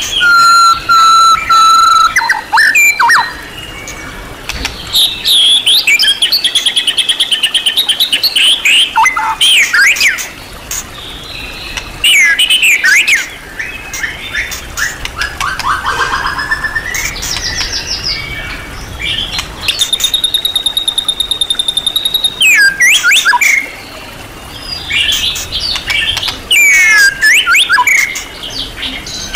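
White-rumped shama singing a long, varied song packed with mimicked calls: loud bursts of sweeping whistles, fast trills and chattering phrases with short breaks between them. About twenty seconds in it holds one steady high note for a couple of seconds.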